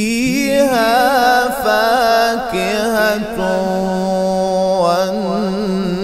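A male qari chanting Qur'anic verses in slow, melodic tajweed style, drawing out long ornamented notes that waver in pitch.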